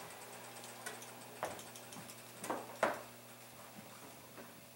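Main rotor of a belt-driven SAB Goblin 500 RC helicopter, spun by hand and let go, coasting down unpowered: a faint whir with a few light, irregular clicks.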